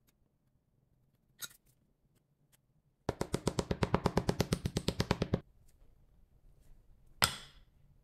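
A metal rod rapping rapidly on a metal casting pattern bedded in foundry sand, loosening it from the mold before it is drawn: a fast, even rattle of taps, about a dozen a second, lasting a little over two seconds. A faint click comes before it, and a single sharp knock near the end.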